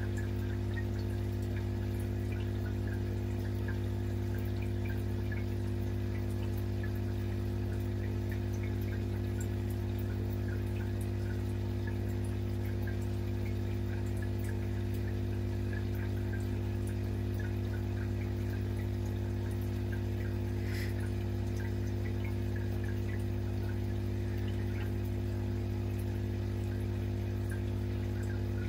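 Aquarium sponge filter bubbling: small air bubbles trickling and popping at the water surface over a steady low hum, with one sharper click about two-thirds of the way through.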